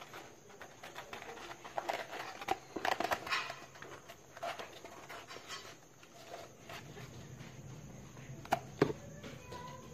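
A white plastic pipe rubbed and scraped against sandpaper in irregular strokes, then plastic pipes handled and knocked together, with two sharp knocks near the end.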